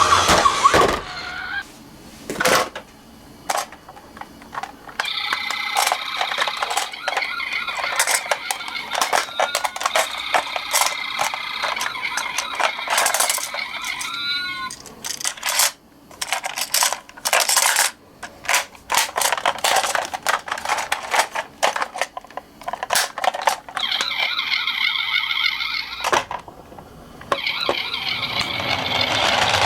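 Toy minicars rolling down a ramp and knocking together: a long run of sharp clicks and clatter, with stretches of a steady high whir.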